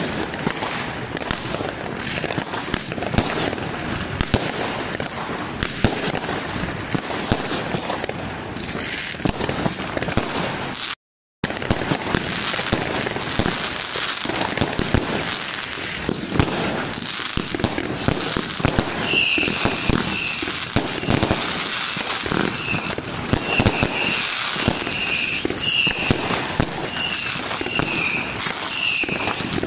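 Fireworks crackling and banging without a break, many shots going off at once, with a brief dropout just before the middle. From about two-thirds of the way in, a short high tone repeats about once a second over the crackle.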